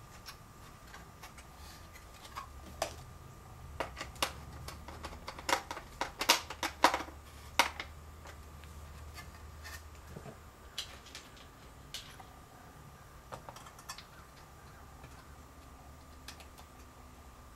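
Light irregular clicks and taps of small parts and a tool being worked on a plastic truck gauge cluster, with a quick run of louder clicks about six seconds in, over a faint steady hum.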